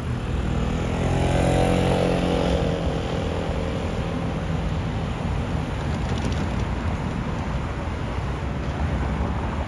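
Street traffic: a motor vehicle passes, loudest about one to three seconds in, over a steady traffic noise.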